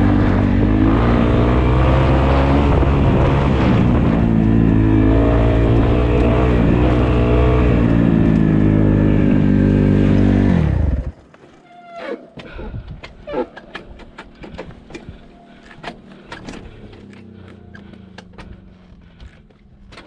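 Dirt bike engine running loudly at a fairly steady pitch, then cutting off suddenly about eleven seconds in. Scattered light clicks and knocks follow.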